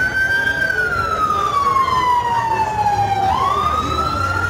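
Emergency vehicle siren on a slow wail. Its pitch falls steadily for about three seconds, then sweeps back up about three seconds in, over a steady low rumble.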